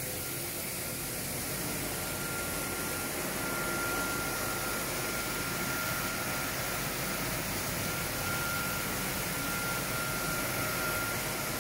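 Hot airflow sawdust dryer running: its electric-motor centrifugal blower and the air rushing through the ducting make a steady whooshing noise. A faint steady whine comes in about a second in and stops near the end.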